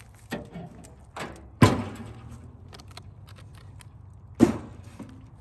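Four hard knocks, each with a short ring after it, over a low steady hum. The loudest comes about one and a half seconds in and another a little before the end, like something being shut or set down firmly.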